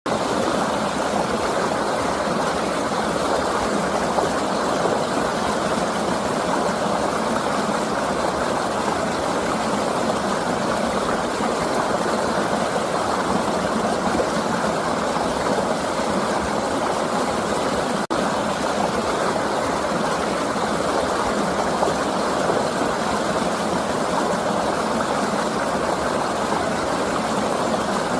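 A flowing river rushing steadily, an even wash of water noise, with a split-second dropout about two-thirds of the way through.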